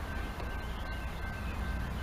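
Low, steady rumble of a distant freight train's diesel locomotives approaching, with a thin steady high-pitched tone over it.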